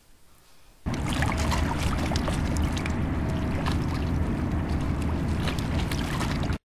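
Small motorboat's outboard engine running steadily on open water, a low, even drone with light clatter, starting abruptly about a second in.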